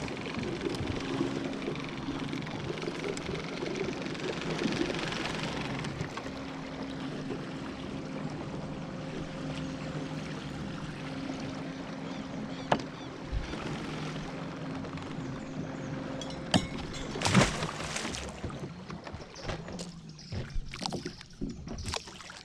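Electric trolling motor humming steadily under water noise, fading out about two thirds of the way through. A sharp knock follows, then scattered knocks and clatters near the end as a small fish is brought aboard the aluminium boat.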